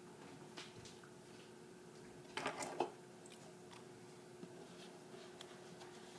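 Faint household handling noises over a steady low hum, with a brief rustling clatter about two and a half seconds in and a few light clicks.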